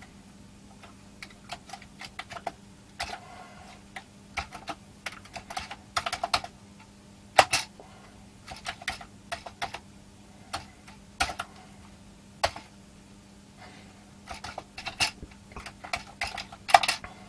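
Typing on a Commodore C16 keyboard: sharp key clicks in quick irregular runs with short pauses between them, over a faint steady low hum.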